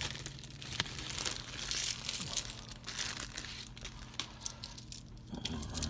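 A bag holding a busted roll of pennies being handled and opened, with continuous crinkling and a few small clicks.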